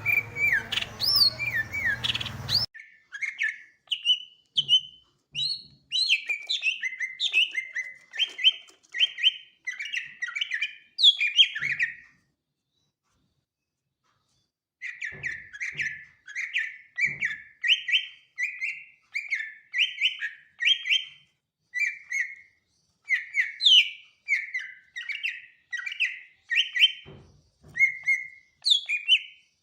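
Greater green leafbird (cucak ijo) singing: fast, continuous runs of short whistled and chattering notes, broken by about three seconds of total silence midway. The first couple of seconds come from a noisier recording that cuts off abruptly.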